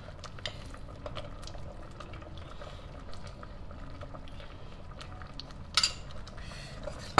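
Metal spoon scooping Thai chili paste from a glass jar and knocking it into a steel pot of simmering stock: light scrapes and clicks, with a sharper clink about six seconds in, over the faint steady bubbling of the stock.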